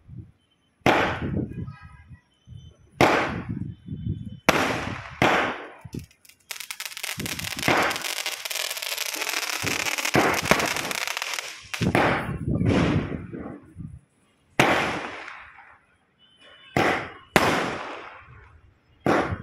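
Ayyan 'Dil Maange More' aerial firework shooting off: a run of loud bangs about every one to two seconds, each fading with an echo. From about six to twelve seconds in, the bangs give way to a dense stretch of crackling.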